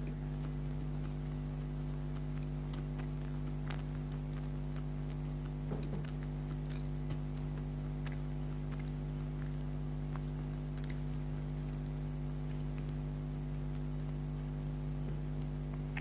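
Close-up mouth sounds of someone chewing motichoor laddu, a run of small, irregular wet clicks. Under them runs a steady low hum.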